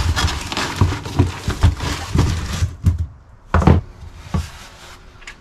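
A petrol chainsaw being lifted out of its cardboard box: rustling and scraping of the cardboard and packing with small knocks, then two sharper knocks of the saw against the box, the loudest about three and a half seconds in.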